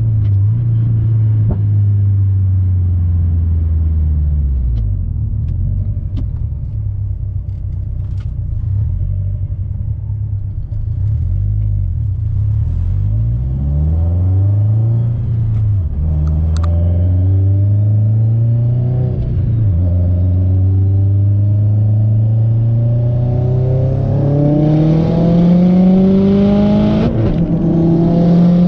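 Subaru WRX STI's turbocharged flat-four engine running through a COBB titanium exhaust while driving. The engine holds a steady low note at first. It then climbs in revs and drops back three times as the car shifts up through the gears, with the longest climb near the end.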